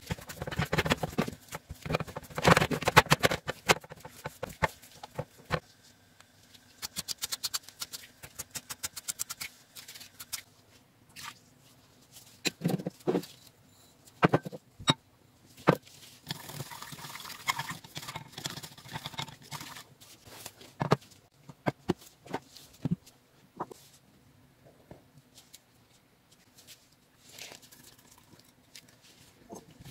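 Kitchen handling sounds: thick red bean paste being scraped around a non-stick frying pan by a gloved hand and spatula for the first few seconds, then scattered taps, clicks and short bouts of stirring and rubbing from bowls and utensils.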